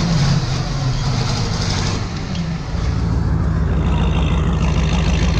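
Big diesel tractor engine running steadily, heard from inside the cab; its low note shifts slightly about halfway through.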